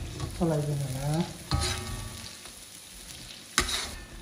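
Spiced mustard oil with dried chillies and masala sizzling in a black iron kadhai while a slotted steel spatula stirs and scrapes through it. The spatula clanks sharply against the pan about three and a half seconds in. A brief wordless voice sounds about half a second in.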